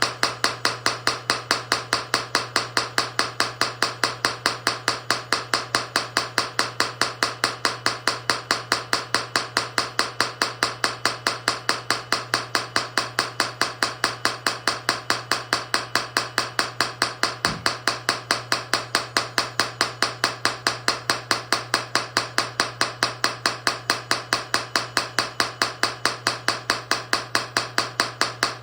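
Lesu hydraulic jack hammer on a scale RC excavator pounding on rock, a steady rapid rattle of about three to four strikes a second over a constant hum. It is making slow progress through a thin, soft flat rock.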